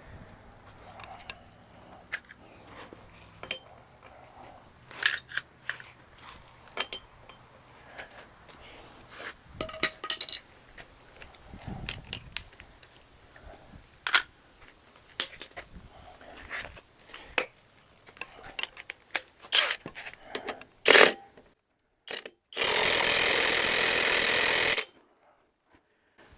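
Scattered clinks and knocks of hand tools and metal parts being handled during an engine teardown. Near the end, a power tool runs in one loud steady burst of about two seconds.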